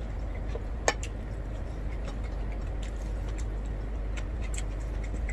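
Eating sounds: scattered small clicks and smacks of chewing and of fingers picking food off a plate, with one sharper click about a second in, over a steady low hum.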